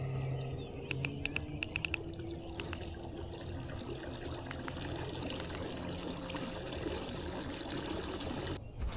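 Water trickling and splashing close by, with a few sharp clicks about a second in.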